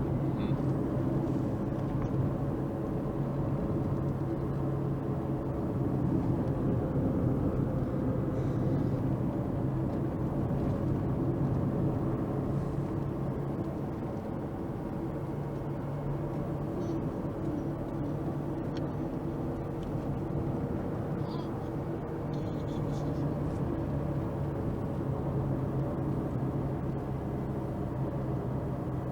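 Steady drone of a car's engine and road noise heard from inside the cabin while driving.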